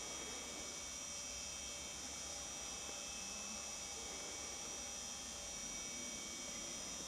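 Steady hum and hiss with faint high steady tones, unchanging throughout; no deer calls.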